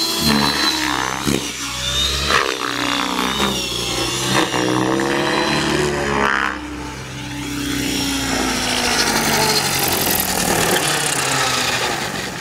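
Align T-Rex 600E electric RC helicopter flying aerobatics: its rotor blades and electric motor run loudly, the pitch sliding up and down again and again. It dips in loudness a little after halfway.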